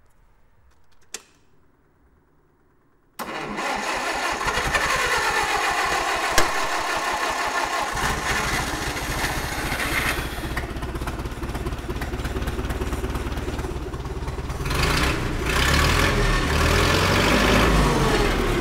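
A click, then about three seconds in the vintage Allis-Chalmers forklift's gasoline engine is cranked and starts, and it runs on, louder near the end. This is its first start after a fuel system overhaul and four or five months of sitting.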